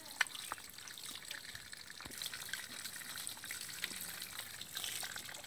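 Light trickling and dripping of water, with many small scattered wet clicks.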